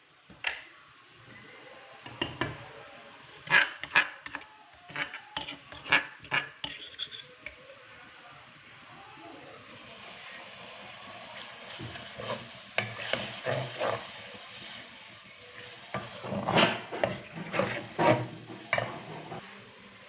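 A metal spoon or spatula stirring and scraping food in a pan over a steady sizzle, with clinks against the pan coming in two spells.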